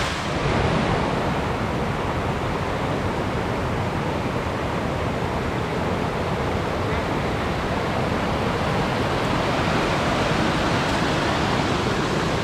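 Rushing mountain stream: a steady, loud rush of white water tumbling over rocks.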